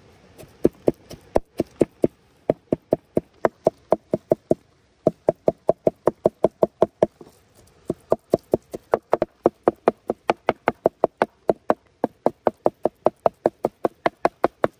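A cleaver chopping through minced chicken and diced bell peppers onto a wooden cutting board: rapid, even chops about four a second, in several runs broken by short pauses.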